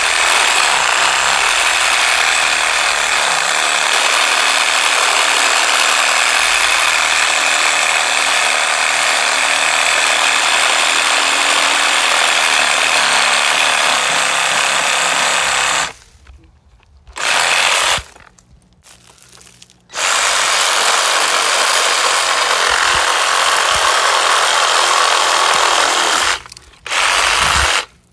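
Hyper Tough 20V cordless reciprocating saw cutting through a tree limb, the blade working back and forth in the wood. It runs steadily, stops about halfway through with one short burst before starting again, then stops briefly twice near the end.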